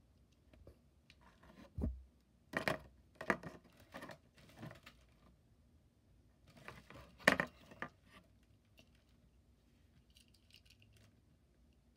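Handling noises from a die-cast toy car and its cardboard and plastic packaging: a low thump about two seconds in, then a run of clicks and scrapes, one sharper click a little past seven seconds, and a faint crinkle near the end.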